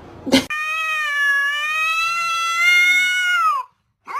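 A cat gives one long drawn-out meow of about three seconds, its pitch dropping at the end. It is preceded by a brief sharp cry and followed, near the end, by a short rising meow.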